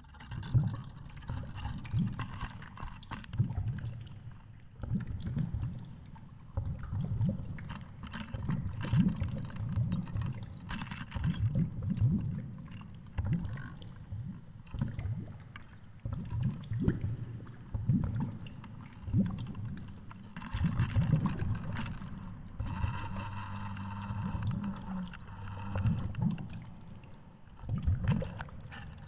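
Muffled underwater sound heard through a GoPro's waterproof housing lowered on a line: irregular low surges and thumps as the water and line move the camera, with a faint low hum joining past the middle.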